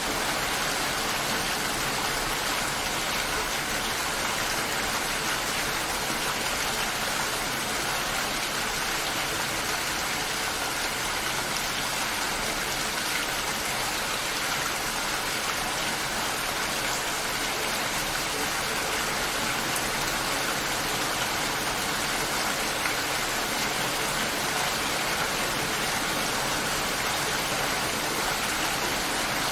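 Steady rain falling, a continuous even hiss of drops with no breaks or single distinct impacts.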